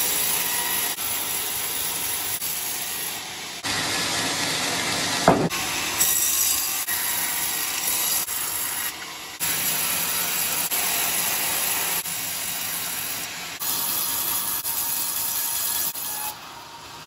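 Band sawmill blade cutting through coconut-palm logs: a steady rasping hiss of the blade in the wood. Its level jumps suddenly several times, and there is one short sharp sound about five seconds in.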